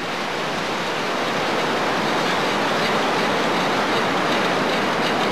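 Steady rushing roar of a glacier-fed river in flood, growing a little louder over the first two seconds.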